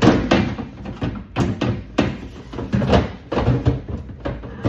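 Irregular knocks and clattering, about two a second, as things are handled and set back into a refrigerator.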